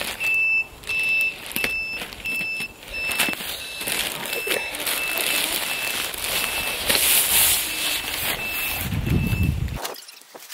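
Plastic mailer bag crinkling and rustling as it is cut open with scissors. A high electronic beep repeats two to three times a second throughout, slowing toward the end.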